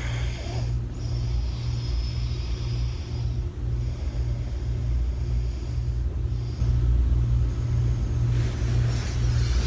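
Steady low rumble of a vehicle in motion, with a faint high whine from about one to six and a half seconds in.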